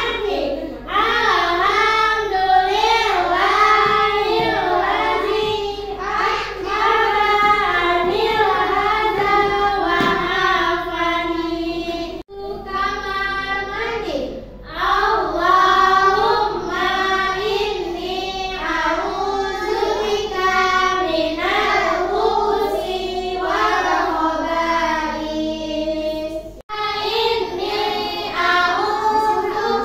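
A group of young children singing a song together, with two sudden breaks where the singing cuts off and starts again.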